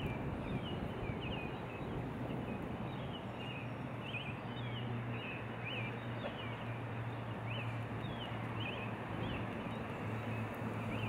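Outdoor ambience by moving water: a steady rushing noise with a low steady hum beneath it, and birds chirping in short, falling calls about twice a second.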